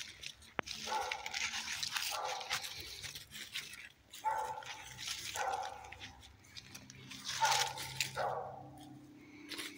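A dog barking several times at irregular intervals, over footsteps crunching through dry fallen leaves.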